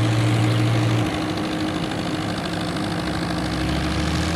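Fiat 850 diesel tractor engine pulling hard as it drags a loaded trailer through deep water, with water churning and splashing around the wheels. The engine note drops about a second in and shifts lower again about three seconds in.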